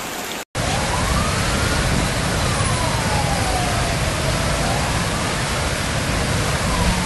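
A swollen, flooding river channel making a loud, steady rush of water. Over it a siren wails, rising and falling slowly every few seconds. Just before this, a brief moment of rain ends in a short dropout.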